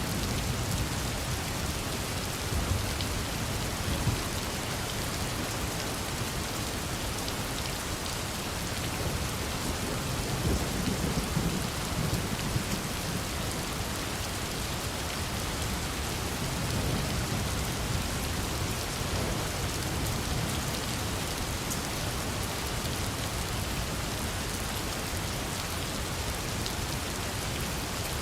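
Steady rain falling and pattering on a surface, an even hiss. Two long, low rumbles swell up under it, about ten and seventeen seconds in.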